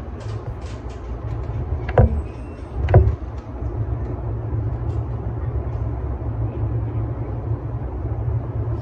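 Steady low hum of a stationary E233-series electric train, heard from the driver's cab, with two loud knocks about a second apart.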